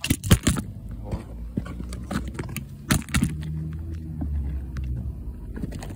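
Fireworks going off: a quick cluster of sharp bangs right at the start and another pair about three seconds in, with smaller pops between, over a low rumble.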